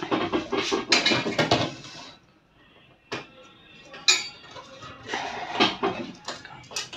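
Clicks, clinks and rattling from handling the opened laminating machine's sheet-metal chassis, wiring and circuit board as connectors are pulled. The sound is busiest in the first two seconds, then comes as scattered clicks and a second burst of rattling about five seconds in.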